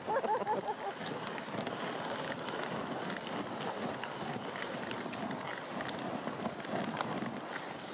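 Dogsled running along a snow trail behind its dog team: a steady hiss of the runners sliding over snow, with a short high cry right at the start.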